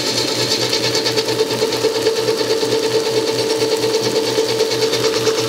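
Hobart N50 commercial stand mixer running on speed 3, its wire whip beating heavy cream in the bowl. The gear-driven motor gives a steady hum with a fast, regular pulse of about four to five beats a second.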